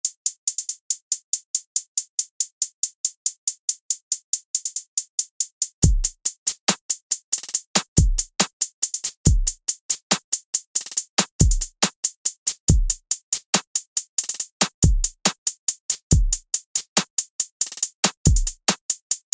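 Electronic drum-machine beat: fast high ticks, about four a second, play alone at first. About six seconds in, a low kick drum that drops in pitch joins them on an uneven pattern.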